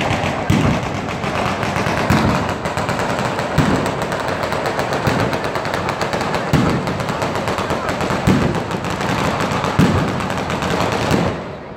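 Batteria, a ground-laid chain of firecrackers, going off in a rapid continuous rattle of bangs, with heavier thuds about every second and a half. It dies down near the end.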